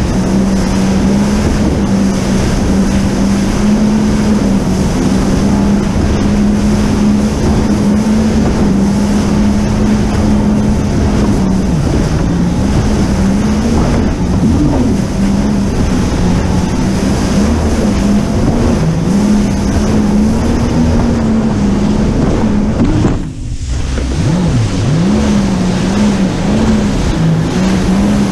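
Jet ski engine running steadily at speed over rushing water, with wind on the microphone. Its pitch wavers up and down as the throttle changes, and there is a brief sharp drop in sound near the end.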